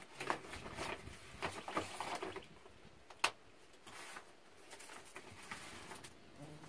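Irregular rustling, light knocks and clicks of gear being handled during packing, busiest in the first couple of seconds, with one sharp click about three seconds in.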